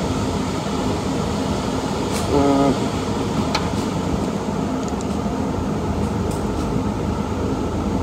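Steady rush of an indoor shooting range's ventilation system, with a few faint clicks and a short pitched tone about two and a half seconds in.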